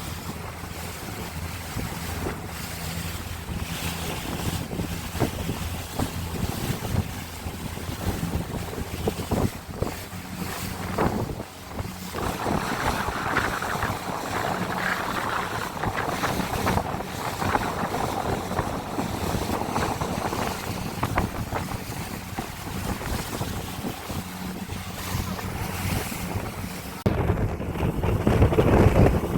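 A boat's engine running with a steady low hum, under wind buffeting the microphone and water rushing past the hull. About 27 seconds in, the wind noise grows louder and gustier.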